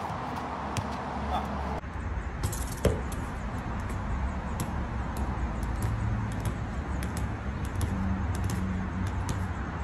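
Football being juggled on the feet: light taps of the ball at uneven intervals over a steady low rumble. The background changes abruptly about two seconds in.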